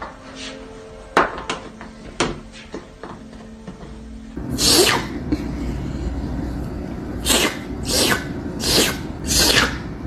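Music with a few sharp clicks, then a run of short, sharp, sneeze-like bursts about once a second.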